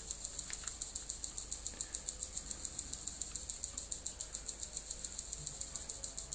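An insect chirring steadily in high, even pulses, about eight a second, with a faint click from hands handling the cable ties about half a second in.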